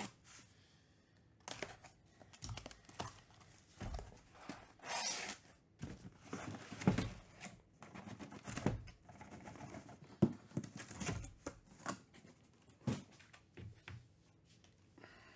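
Packing tape torn from a cardboard shipping case and the case opened, followed by cardboard rustling and scraping and a series of short knocks as the boxes inside are handled and set down.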